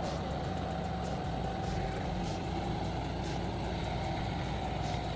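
Large excavator's diesel engine running steadily: an even, low drone.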